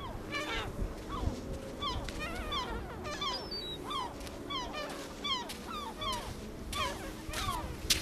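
Seagulls calling over the beach: a steady run of short, falling cries, a few a second. Near the end comes a louder thump, a footstep on the sand right by the camera.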